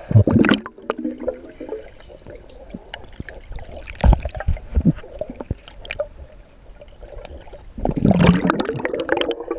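Muffled gurgling and sloshing of pool water, heard through an underwater camera housing as a Labrador retriever paddles overhead. There are a few dull knocks about four to five seconds in, and loud churning bursts at the start and again near the end.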